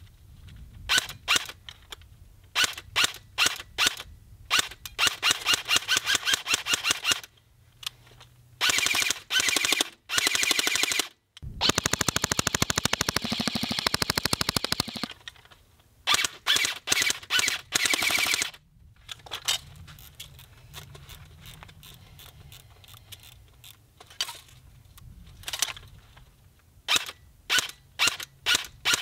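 Airsoft rifle firing: a few spaced single shots, then rapid full-auto strings, the longest running unbroken for about three seconds in the middle, and spaced single shots again near the end.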